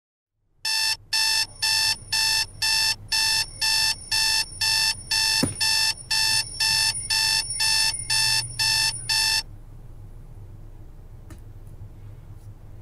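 Electronic alarm clock beeping, a fast run of about two beeps a second that cuts off suddenly about three seconds before the end, leaving a faint low hum.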